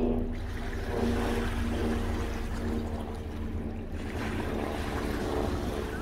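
Wind buffeting the microphone over small lake waves lapping at the shore, with a steady low hum underneath.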